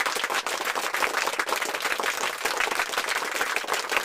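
Applause: many hands clapping quickly and steadily.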